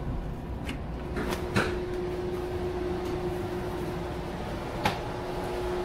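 Steady rumble and low hum inside a Mugunghwa passenger train carriage, with a few sharp clicks: two close together about a second and a half in, and one more near the end.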